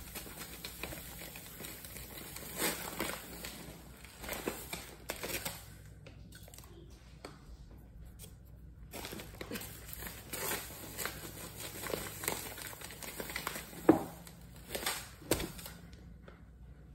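Paper bag of granulated sugar crinkling and rustling as sugar is poured from it into a glass measuring cup and the bag is handled, in irregular bursts. Three sharp knocks come near the end.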